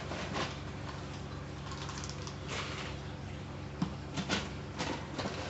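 Plastic scoop scraping and digging through a layer of clay balls in a glass tank, with several short rattles and clatters; the loudest come about four seconds in. A steady low hum runs underneath.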